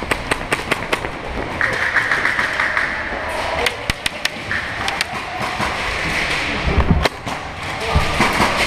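Airsoft guns firing across the field: irregular sharp pops and clicks, with heavier low thumps about seven seconds in.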